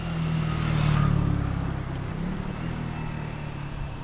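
A motor vehicle's engine passing close by on the road, growing louder to about a second in and then slowly fading away.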